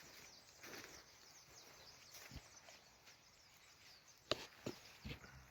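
Faint campfire crackle: scattered small clicks and a few sharper pops of burning wood, the loudest about four seconds in.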